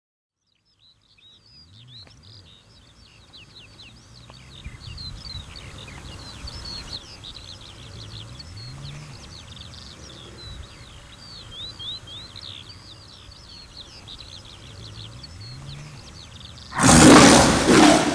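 Birds chirping and singing, with low growls rising and falling a few times. Near the end comes a loud, harsh tiger roar lasting about a second and a half.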